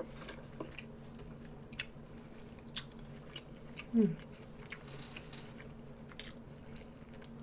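A person chewing food close to the microphone, with soft scattered mouth clicks over a steady low hum. A brief falling voiced sound about four seconds in is the loudest moment.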